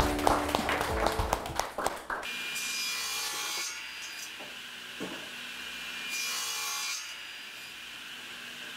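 Scattered clapping over music for about two seconds. Then a hand tool rubbing along wood at a workbench: two long rasping strokes, each about a second long, a few seconds apart.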